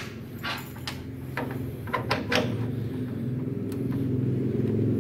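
Clicks and knocks of a TIG torch connector and its cables being handled and plugged into the front socket of a welding machine, mostly in the first two and a half seconds. Under them a low steady hum grows gradually louder.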